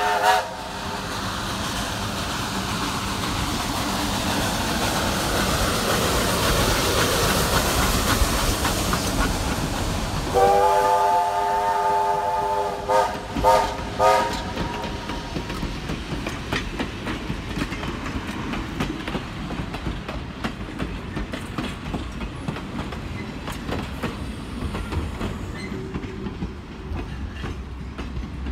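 Steam locomotive running, with a steady rush of steam and rail noise. About ten seconds in its whistle sounds one long blast, then three short toots, and the train's running noise carries on more quietly.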